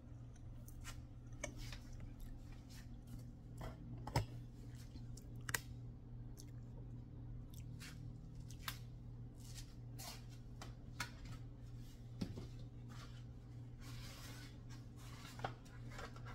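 Kitchen items being handled: scattered small clicks and taps, with a brief rustle about fourteen seconds in, over a steady low hum.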